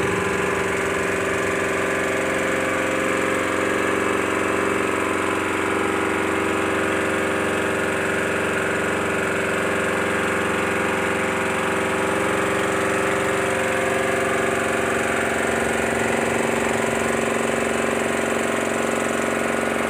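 Handheld electric heat gun running continuously, its fan motor giving a steady, unchanging hum as it blows hot air.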